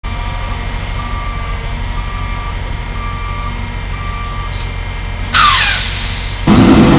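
Heavy truck's reversing alarm beeping about once a second, five times, over a low engine hum. About five seconds in comes a sudden loud hiss with a falling tone, then the engine gets much louder just before the end.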